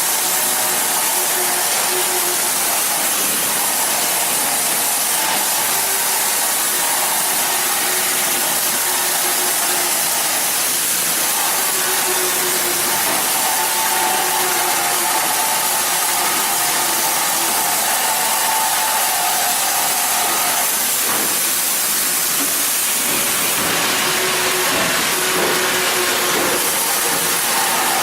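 Welding arc hissing steadily, with a faint hum underneath that fades in and out.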